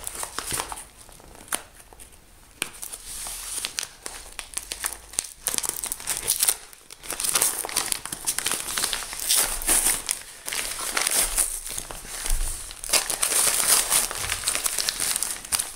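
Yellow padded paper mailer being handled, torn open and unpacked, its paper and plastic wrapping crinkling and crackling in irregular snaps, busier and louder from about halfway through.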